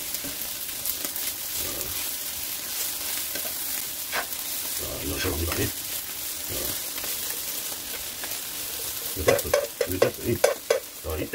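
Torn dried filefish pieces sizzling steadily in hot oil in a frying pan, tossed with metal tongs that click and scrape against the pan. About nine seconds in, a run of quick tong clatters is the loudest part.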